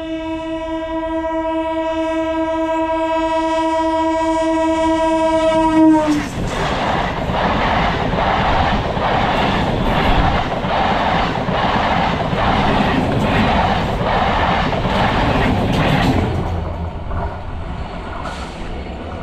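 Indian Railways EMU local train sounding a long, steady horn for about six seconds; its pitch drops as the train reaches the microphone. Then the coaches pass with a loud rhythmic clatter of wheels over the rail joints, about one clack every three-quarters of a second, which fades in the last few seconds.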